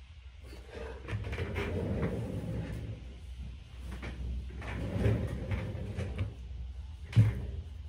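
Rustling and shuffling handling noises as a person moves about and handles fabric and household items, in two stretches, then one sharp knock near the end.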